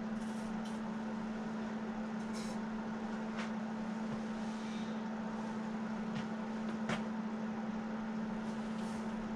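Steady machine hum: one constant low tone over an even haze of noise, with a few faint clicks from handling things on the workbench.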